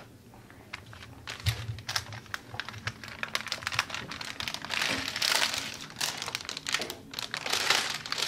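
Foil pouch of a fiberglass splint roll crinkling and crackling as it is handled and folded over by hand to seal its cut end, in a series of irregular rustles that grow busier in the second half.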